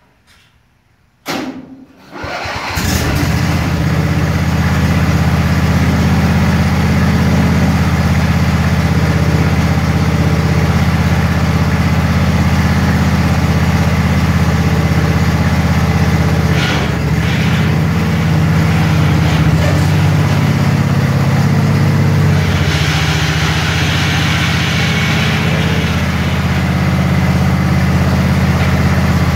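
The engine of a homemade 4x4 UTV starts up about two seconds in and then runs steadily. It turns brighter and harsher for a few seconds about three quarters of the way through.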